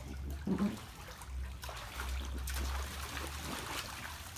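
Water splashing and trickling in an inflatable paddling pool as children move about in it, small irregular splashes over a low rumble.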